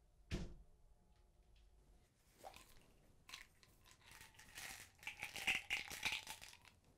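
A single thump about half a second in. Then a plastic prescription pill bottle is handled and opened: its cap clicks and the pills rattle inside, loudest in the last couple of seconds.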